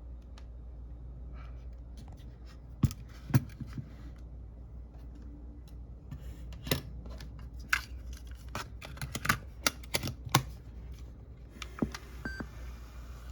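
Sharp plastic clicks and clatter of a Sony WM-EX633 cassette Walkman being handled, its buttons and mechanism clicking at irregular intervals, a dozen or so clicks in all, over a low steady hum.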